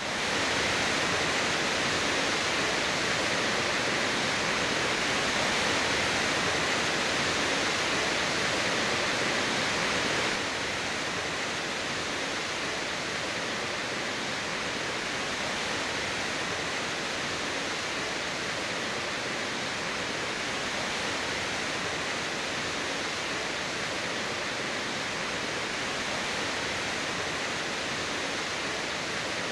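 Steady rushing of a flood-swollen stream: a continuous, even roar of fast water that drops a little in level about ten seconds in.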